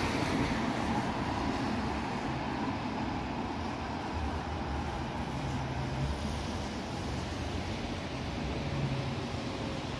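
Steady traffic noise of a busy road, vehicles passing continuously.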